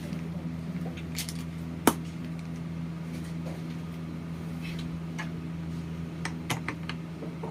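Small hard parts being handled during a PC build: scattered clicks and light clatter, one sharp click about two seconds in, over a steady low hum.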